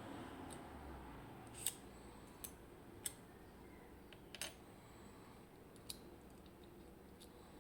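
Small metal parts of a Miwa EC lock clicking and tapping as it is taken apart, about half a dozen sharp, separate clicks spaced irregularly, one of them doubled.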